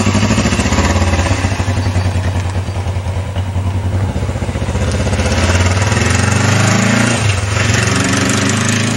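Motorcycle engine running as the bike pulls away carrying a rider and a passenger. The sound fades slightly about three seconds in, then grows louder again as the bike comes closer.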